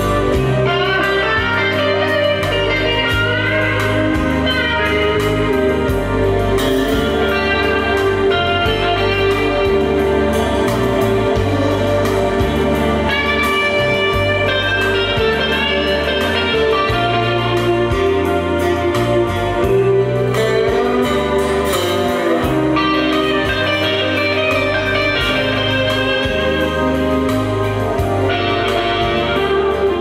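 Music played through a Harman Kardon Aura Studio speaker: a melody with sliding notes over a steady bass line.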